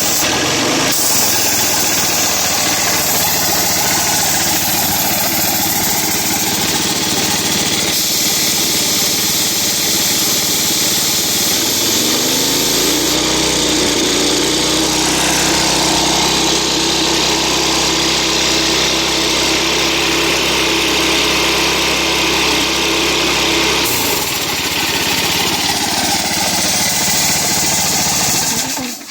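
Kawasaki gas engine on a Speedaire air compressor running steadily. About twelve seconds in its pitch climbs and holds, then drops back some ten seconds later. This fits the engine throttling up in the run position to pressurize the tank, then falling back toward idle.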